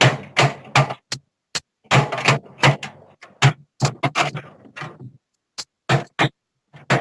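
Irregular knocks and clicks, a dozen or more, as a motherboard I/O shield is pushed and tapped into the rear opening of a PC case, pausing briefly a few times.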